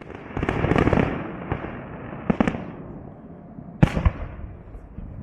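Fireworks salute going off: a quick run of bangs in the first second, then single sharp bangs about two and a half and four seconds in, with a long rumbling echo dying away between them.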